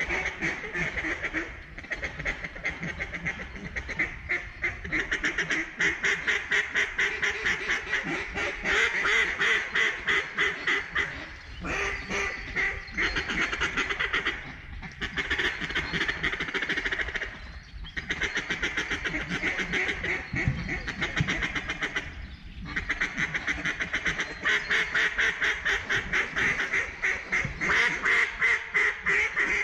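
Mallard-style duck calls blown in long runs of rapid quacking and feeding chatter, broken by brief pauses: hunters calling to ducks over their decoys.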